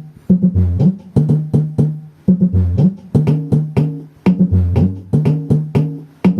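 Bass-heavy test music playing through a PA sound system during its low-frequency check: a repeating pattern of short plucked bass notes and sharp percussive clicks.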